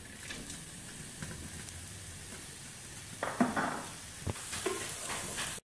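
Sliced onions sizzling in hot oil in a kadhai, a steady hiss, with a few sharp knocks about three and four seconds in. The sound cuts off suddenly near the end.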